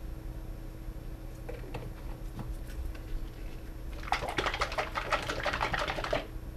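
A bottle of PR48 resin shaken hard for about two seconds, the liquid sloshing in rapid strokes, after a few scattered handling clicks.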